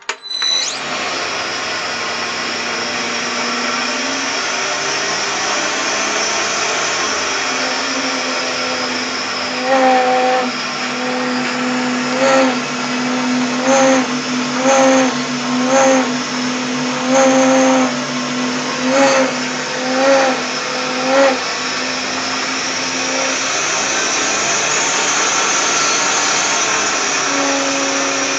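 Milling machine starting up and running steadily, with a loud pitched groan that surges about nine times at roughly one-to-two-second intervals in the middle, then fades back to steady running; this recurring groan is the machine's abnormal noise.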